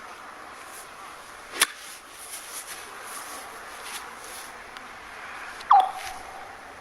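A sand wedge cracks against a golf ball about a second and a half in. About four seconds later the ball lands on lake ice and sets off a short zinging chirp that falls in pitch and rings on for a moment, the laser-like sound of a bounce on thin frozen ice.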